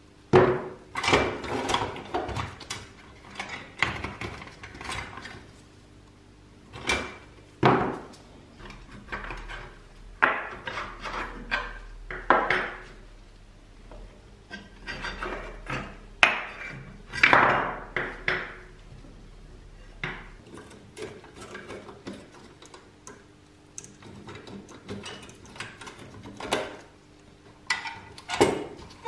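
Pressed-steel toy bulldozer body, plastic track wheels and rubber tracks knocking, clinking and scraping on a wooden bench as the rusty toy is taken apart by hand. The sounds come in irregular bursts, some sharp knocks among them, with quieter handling between.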